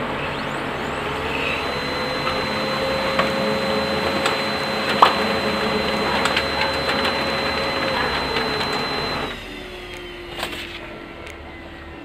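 Brother DCP-L2540DW laser printer running a print job with its newly replaced fuser assembly: a steady motor whir with a high whine and light clicks of paper feeding. After about nine seconds it drops to a quieter steady hum as the page comes out.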